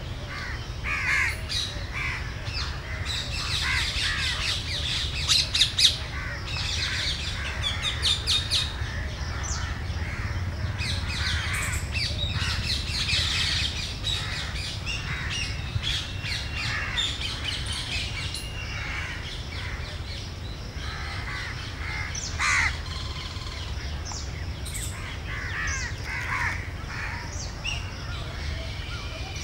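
Wild birds calling and chirping in a busy mix of short repeated calls, over a steady low rumble.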